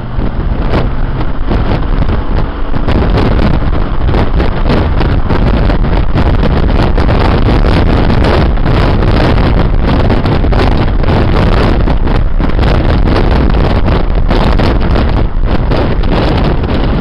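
Heavy wind buffeting on the microphone at an open car window, over the engine and road noise of a car driving along at speed.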